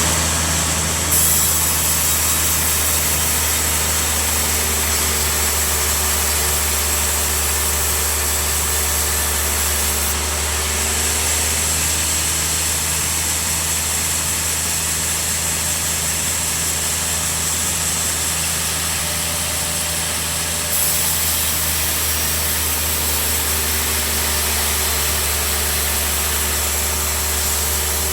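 Bandsaw sawmill running steadily: a deep, even hum with a high hiss above it. The hiss shifts in level about a second in, again around ten seconds and again around twenty-one seconds.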